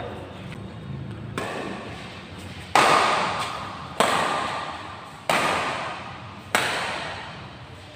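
Badminton rackets striking the shuttlecock in a doubles rally, five sharp hits about a second and a quarter apart, each echoing in a large hall; the hit about three seconds in is the loudest.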